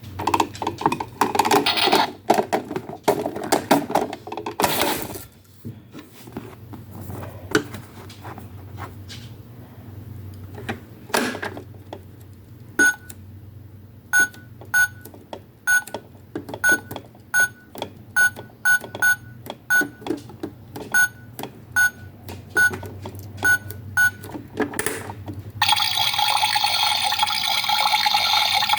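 Toy washing machine being worked: plastic clattering and clicks, then a string of short identical electronic beeps as its buttons are pressed, about one to two a second. Near the end it starts a steady rushing water sound effect from its speaker.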